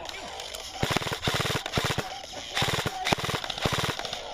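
Airsoft rifle firing full-auto in a string of short, rapid bursts.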